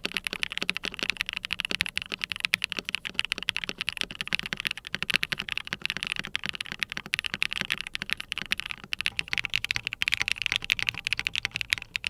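Fast, continuous typing on a QWERTYKEYS QK100 full-size mechanical keyboard fitted with factory-lubed BSUN Aniya linear switches, a POM plate, and case and plate foam. The board is top-mounted first and gasket-mounted partway through.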